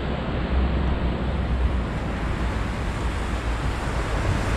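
Wind buffeting the action camera's microphone as it moves: a steady rushing noise with a heavy low rumble.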